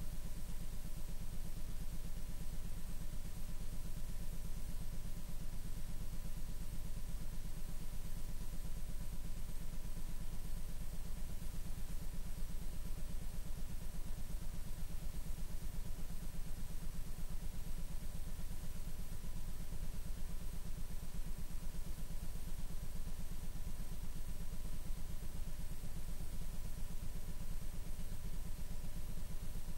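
Steady low electrical hum and buzz with a fast, even pulsing, over faint hiss and a few thin steady whines: the noise of a blank stretch of videotape after the recording has ended.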